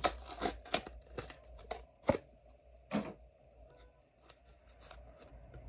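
A Hot Wheels blister card being torn open by hand: irregular crackles and tears of plastic and cardboard, with two loud snaps about two and three seconds in.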